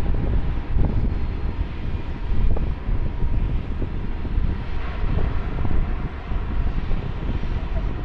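Wind gusting on the microphone over the steady noise of jet aircraft engines at an airport, with a faint high whine held throughout.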